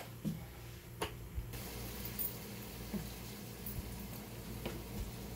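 Chicken cooking in a pan on a gas burner: a faint, steady sizzle over a low hum, with a few light clicks.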